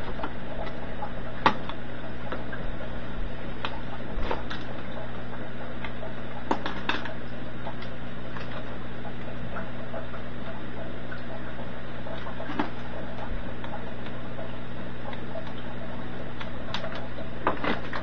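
Scattered light clicks and taps of wires and small parts being handled in and against a sheet-metal relay box, at irregular moments, over a steady background hum.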